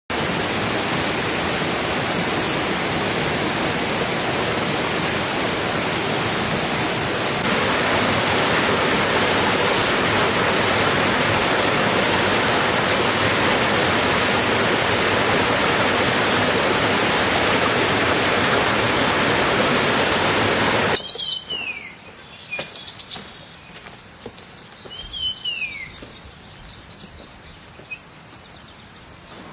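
Heavy rain falling in a steady rush that gets a little louder about a third of the way in, then cuts off abruptly about two-thirds through. After the cut, birds give a few short downward-sweeping chirps over a steady high insect buzz.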